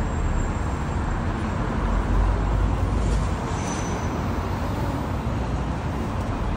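Steady city street traffic noise, a continuous rumble of passing vehicles.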